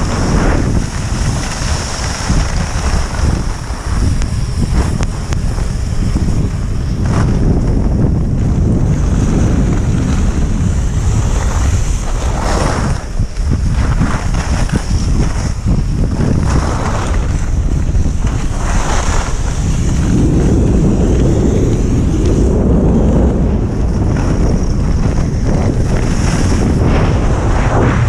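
Heavy wind buffeting the microphone of a camera carried downhill by a skier, with the hiss of skis sliding over snow and a louder swish every few seconds as they turn.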